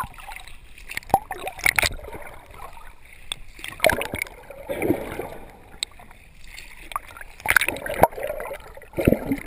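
Sea water sloshing and splashing against a handheld GoPro camera as it dips under the surface and back out, with bubbling and irregular sharp splashes from a swimmer's arm strokes.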